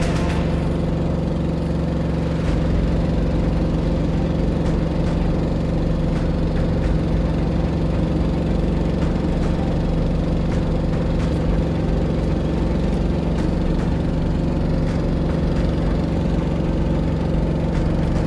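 A boat's motor running steadily at one constant speed, a continuous drone that never changes pitch.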